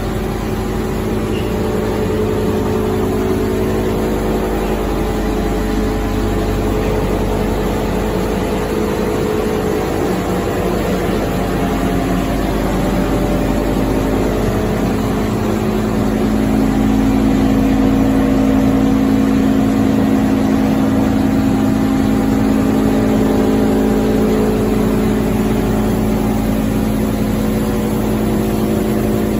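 QD-600SA copper wire granulator recycling line running: a steady mechanical hum of electric motors, conveyors and a vibrating separator table over a constant hiss of noise. It gets slightly louder and deeper about halfway through.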